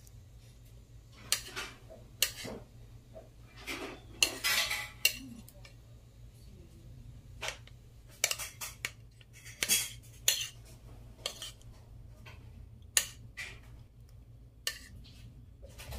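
Kitchen utensils clinking and knocking against a bowl and a plastic container as mango pieces are scooped out and laid onto graham crackers, in scattered short knocks with a longer scraping stretch about four seconds in.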